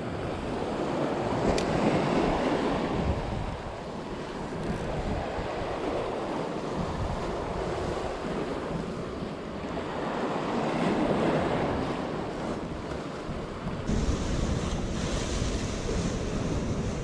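Sea waves washing against the rocks of the shoreline, swelling and easing in slow surges, with wind buffeting the microphone, heavier near the end.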